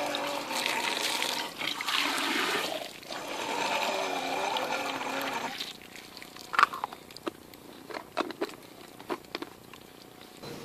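Water running hard from an outdoor ground-level spigot and splashing into a container held under it. It shuts off about halfway through, and a few scattered clicks and knocks from handling the container follow.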